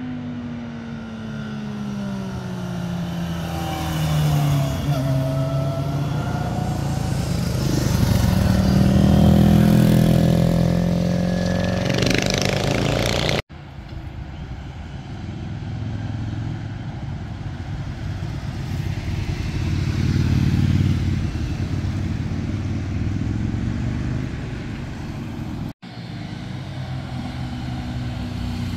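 Motorcycle engines passing close by on a winding road: the pitch drops as a bike slows into a bend, then climbs as it accelerates out, loudest about a third of the way in. The sound cuts abruptly twice, and each time a new pass begins; the last one ends with another engine climbing in pitch.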